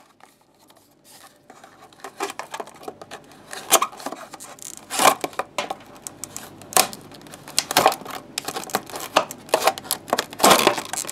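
Benchmade Mini Griptilian folding knife slicing open stiff clamshell plastic packaging. After a quiet first second or so comes irregular scraping and crinkling of the plastic, with several sharp cracks as the blade cuts through.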